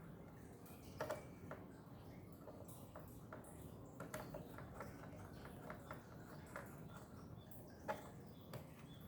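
Faint, scattered small clicks and ticks of a screwdriver working a screw out of a laptop's plastic bottom cover, with a few sharper clicks about a second in and again near the end.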